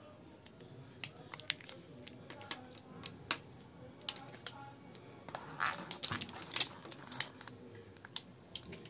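Scattered small clicks and taps of hands handling a charging cable and a cardboard phone box, busiest and loudest a little past the middle.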